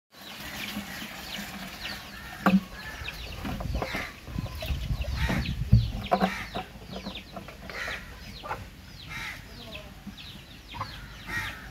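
Chickens clucking amid many short, quick bird chirps, with a couple of dull knocks about two and a half and six seconds in.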